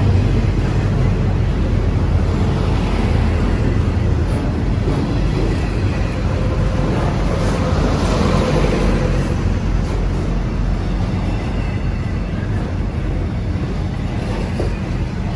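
Intermodal freight train's container cars passing at speed close by: a steady, loud rumble of steel wheels rolling on the rails.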